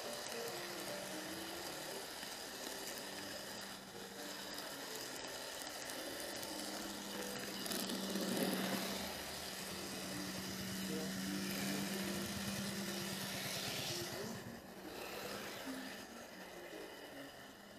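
N gauge model train running along the track: the small motor and wheels give a steady hum, swelling louder for a moment about eight seconds in and quieter over the last few seconds.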